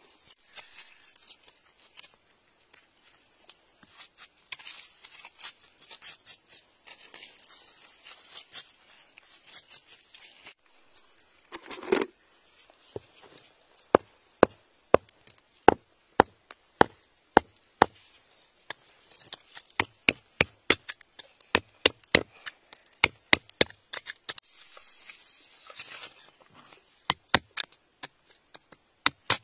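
A hand hammer striking a chisel driven into rock. From about halfway in come sharp strikes, about two a second, which come faster later on. Before that there is scraping and rustling in gravelly soil and a single louder knock.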